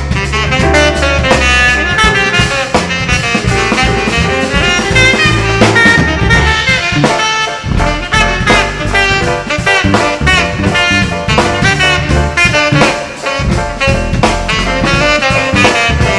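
Live band music: a melody line over a steady drum beat.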